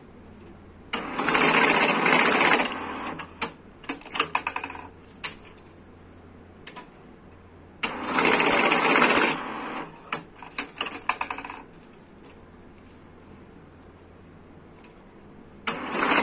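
Korean-made ST-150NV banknote counting and sorting machine running in three short bursts of about a second and a half to two seconds each, feeding a few notes through at a time. Each run is followed by a scatter of sharp clicks, and the third run starts near the end.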